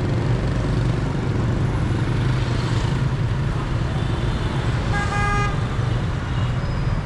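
Steady street traffic noise with a low engine rumble from motorbikes and cars. A vehicle horn honks once, briefly, a little after five seconds in.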